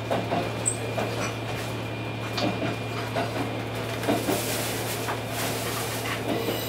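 Setsugekka diesel railcar running along the track, heard from inside its front cab: a steady low engine hum with scattered knocks and clacks from the wheels on the rails.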